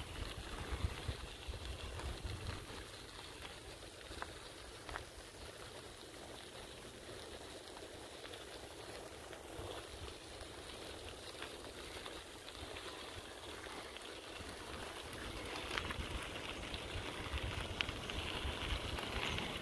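Bicycle tyres rolling over a gravel towpath: a steady crunching crackle of small stones, with a low rumble in the first few seconds and again near the end as the level rises.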